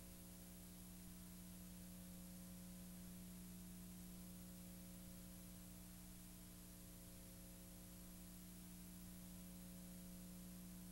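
Near silence: a faint, steady electrical hum with a low hiss, unchanging throughout, with no sound from the filmed scene.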